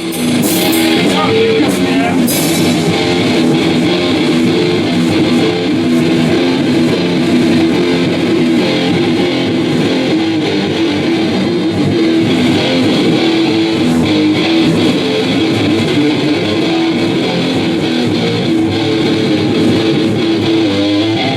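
Electric guitar playing a continuous rock jam, loud and even, with no pause.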